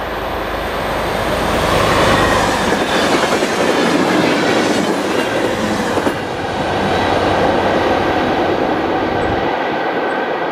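DR1A diesel multiple unit passing close at speed: the diesel engine and the wheels on the rails grow louder, are loudest as the leading power car goes by a couple of seconds in, then the carriages and rear power car run on and slowly ease away.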